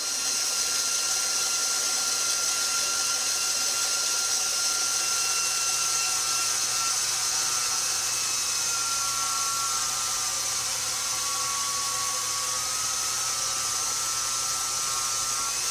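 KitchenAid stand mixer motor running steadily at speed 2, driving the stainless steel pasta roller attachment as a sheet of dough is fed through on the thickest setting. A steady whine over a hiss, wavering slightly in pitch.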